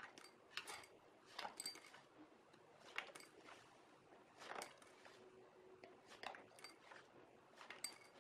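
Small hard-shelled candies dropping into a ceramic bowl from a cardboard dispenser chute, with a faint sharp click and clink each time the slider is worked, about once a second.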